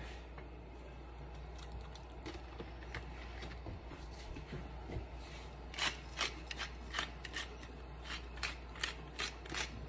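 Hand-turned pepper mill grinding green peppercorns over the pot, a quick series of clicks starting about six seconds in.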